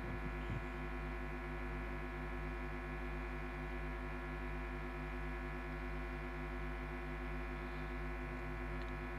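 Steady electrical hum from a PA sound system, made of several fixed pitches at once and holding unchanged.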